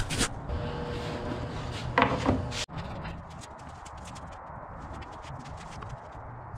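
Half-inch MDF boards being handled and set in place by gloved hands: light taps, ticks and rubbing of board on board. There is a short pitched squeak-like sound about two seconds in, and a sudden change at an edit shortly after.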